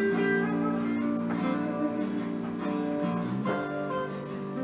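Background music: guitar playing held notes and chords.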